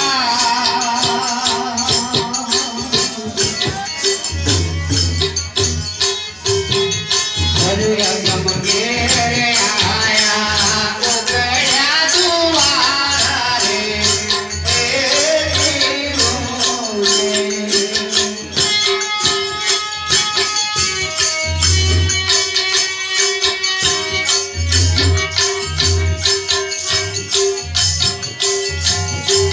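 Live Gujarati bhajan: a man singing over a harmonium's sustained reed tones, with a hand drum and small hand cymbals keeping a brisk, steady rhythm. The voice stands out most in the middle, while the harmonium and percussion carry on alone toward the end.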